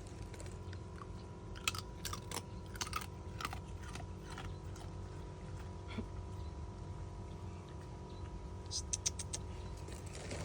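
A dog chewing and crunching food, with bursts of crisp crunches about two seconds in and again near the end.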